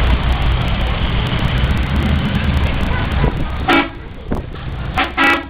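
Cars driving slowly past with a steady engine rumble, then a car horn gives three short toots in the second half.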